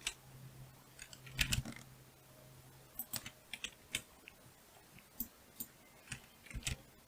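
Computer keyboard keys pressed in scattered single taps and short clusters, as when entering software shortcuts, with a busier run of key presses about a second and a half in. A faint low hum runs under the first two seconds.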